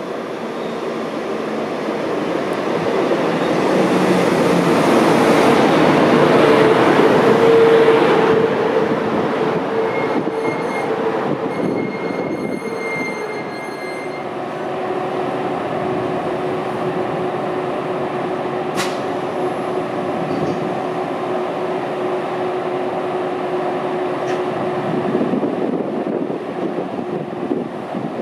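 An electric train running into the platform, its rumble building to a peak and then easing off, with a run of short electronic beeps about halfway through. Then a DB class 111 electric locomotive heading double-deck coaches rolls slowly into the platform with a steady hum, and a single sharp click partway through.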